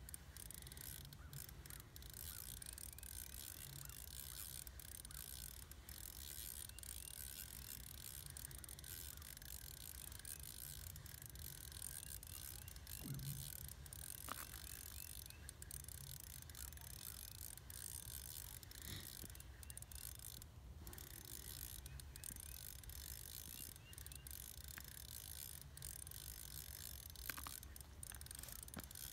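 Faint, irregular clicking of a fishing reel's drag and handle as a hooked fish is played on a short ice rod.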